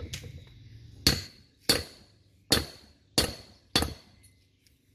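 Hammer striking metal on a 24-volt dynamo (alternator): about five sharp blows, well under a second apart, each with a short metallic ring.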